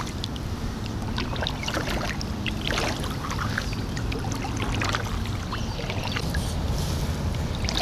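Kayak paddle strokes: the double-bladed paddle dips and pulls through the water, with scattered small splashes and drips running off the blades, over a steady low rumble.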